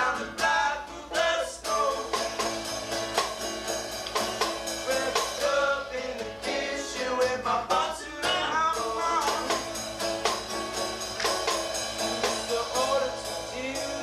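Acoustic folk-band music: a strummed acoustic guitar with banjo and a hand-played snare drum keeping an even beat, and male voices singing off and on over it.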